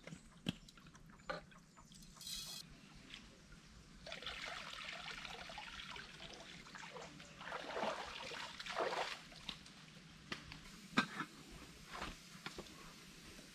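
Water trickling and pouring for several seconds, with a couple of louder sloshes near the middle and a few sharp knocks before and after.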